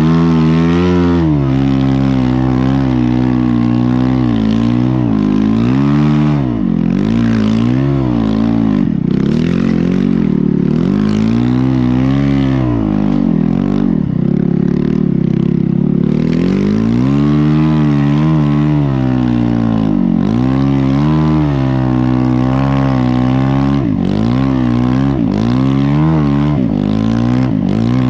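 Snow bike engine (a dirt bike with a Yeti snow-bike conversion) revving up and down under throttle, its pitch rising and falling every second or two. The pitch is held higher for a few seconds in the middle.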